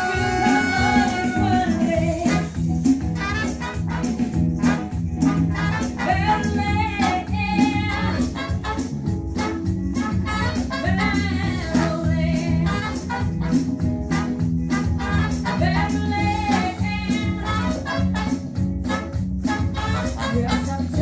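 A live Thai luk thung band playing a song, with drums and jingling percussion keeping a steady beat under a bass line and a melody.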